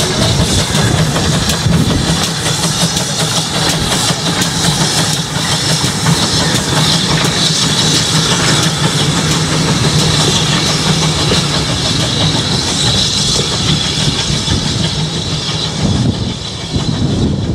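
GWR 57xx class 0-6-0 pannier tank steam locomotive running past under steam with a carriage: a steady, loud rush of exhaust and hiss mixed with the rattle of wheels on the rails.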